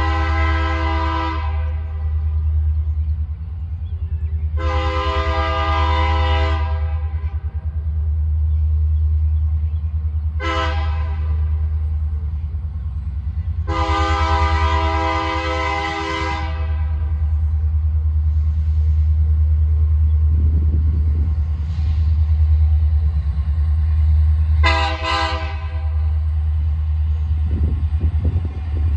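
Air horn of an approaching ex-Norfolk Southern SD60M diesel locomotive sounding the grade-crossing signal: long, long, short, long, then two quick short toots near the end. A steady low rumble runs underneath.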